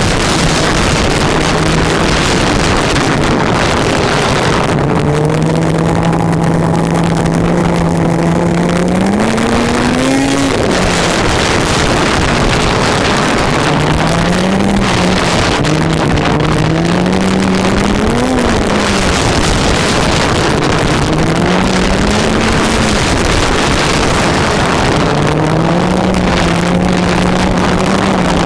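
Snowmobile engine running under way, its pitch rising and falling several times with the throttle and holding steady in between, over a steady rushing noise.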